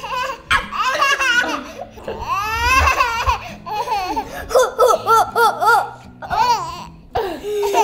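A baby and young children laughing and giggling in repeated short bursts, with a quick run of laughs in the second half.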